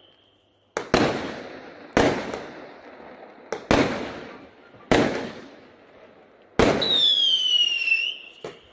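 Aerial fireworks bursting: six or seven sharp bangs roughly a second apart, each trailing off in a long echo. Near the end a whistling firework gives a whistle that falls in pitch for about a second.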